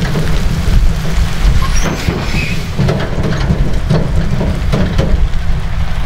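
Heavy semi-truck's diesel engine running as it pulls away slowly, hauling a 21-ton bulldozer on a low-loader trailer: a deep, steady rumble with scattered knocks.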